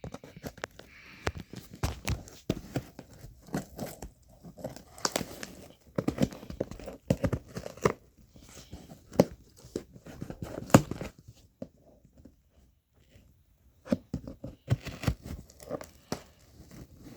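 Packing tape being peeled and torn off a cardboard shipping box, with crinkling and scraping of the cardboard, in irregular bursts with a short lull about two-thirds of the way through.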